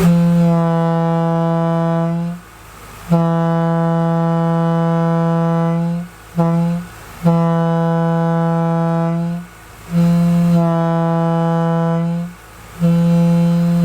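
Leslie A200 single-chime air horn blowing a grade-crossing pattern of long, long, short, long blasts on one steady note, then starting the pattern again with two more long blasts.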